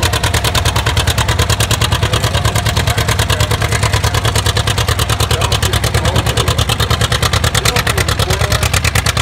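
A 1954 John Deere Model R's two-cylinder diesel engine pulling hard under full load as it drags a weighted tractor-pull sled, its exhaust giving a rapid, even pulsing beat.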